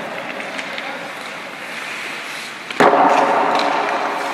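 Hockey skates scraping and gliding on rink ice, with a sharp crack about three seconds in followed by a louder wash of noise that fades over about a second, echoing in the arena.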